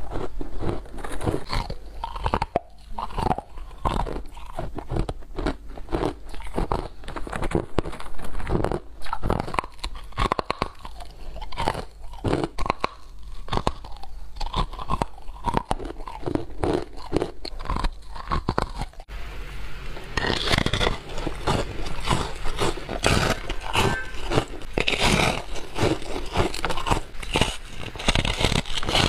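Close-miked biting and chewing of hard freezer frost: dense, crisp crunching with many crunches per bite. About two-thirds of the way through the sound changes abruptly to a brighter, hissier crunch as a large slab of frost is bitten into.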